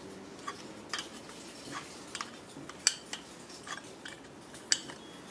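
Small wrenches clicking and clinking against the adjusting screw of an S&S Quickee adjustable pushrod as it is turned out, wrench repositioned on the flats: light, scattered metal ticks, with two sharper clicks about three and about four and a half seconds in.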